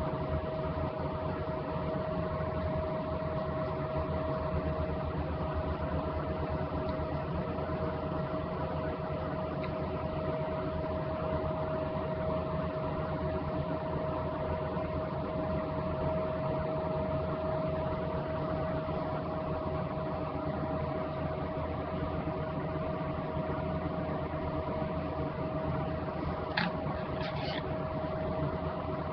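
Steady hum with one constant mid-pitched tone over a low even noise, unchanging throughout; two faint short clicks near the end.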